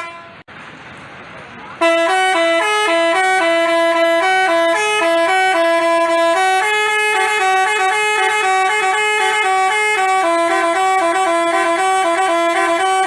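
Telolet bus horn, a Basuri-type multi-tone musical horn, playing a quick stepping tune of clear sustained notes. It starts suddenly about two seconds in, over a quieter steady background noise.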